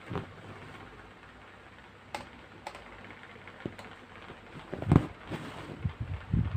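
Handling noise from hand embroidery: a few light clicks and taps as the needle and yarn are worked through the canvas-mounted fabric, a louder knock about five seconds in, then a run of soft thumps and rustling.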